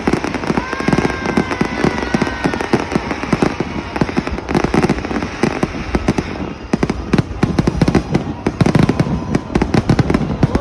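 Fireworks going off without a break: a dense, rapid run of pops and crackles.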